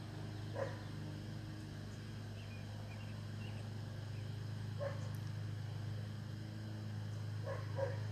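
A dog barking in short single barks about half a second in and again near five seconds, then twice in quick succession near the end, over a steady low hum.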